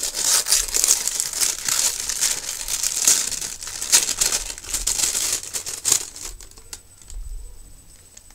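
Crinkly wrapping being crumpled and opened by hand, a dense crackling that runs for about six seconds and then thins to a few faint rustles and clicks.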